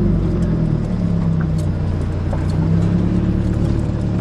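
Car engine idling steadily, its pitch wavering slightly.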